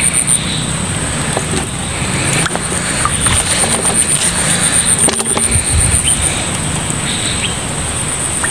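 An insect calls in a fast, even, high-pitched pulse. Under it are low rustling and a few sharp knocks from a PVC-pipe eel trap being handled.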